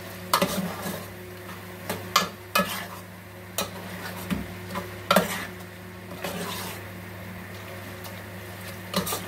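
Metal spoon stirring in a cooking pot, knocking and scraping against the pot at irregular intervals, while eggplant and chicken fry in their own juices without added water with a faint sizzle. A steady low hum runs underneath.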